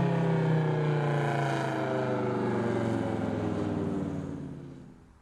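Federal 3T22 three-tone electromechanical siren sounding its chord, then winding down: the tones slowly sink in pitch and fade out about four to five seconds in.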